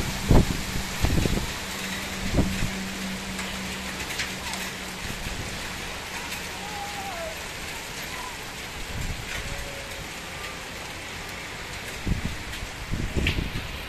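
Heavy thunderstorm downpour, a steady hiss of rain falling on roofs, cars and street. Low, uneven rumbling swells near the start and again near the end, with a few sharp ticks of drops striking close by.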